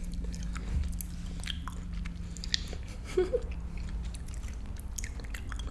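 Close-miked chewing of a jelly bean, soft wet clicks and crackles of the mouth, with a short mouth or throat sound about three seconds in.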